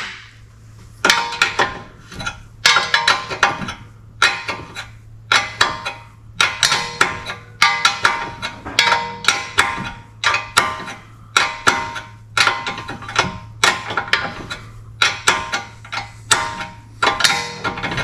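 Hand tool working the castle nut on a new outer tie rod end: repeated bursts of sharp metallic clicking and clanking with a ringing tone, about one burst a second, as the nut is run down and tightened.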